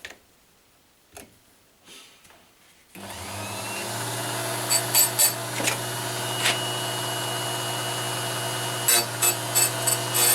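A few light clicks, then about three seconds in a small electric chainsaw-chain grinder switches on and runs steadily with a low hum. Several brief, sharp grinding touches follow as the wheel is dipped onto a chain tooth.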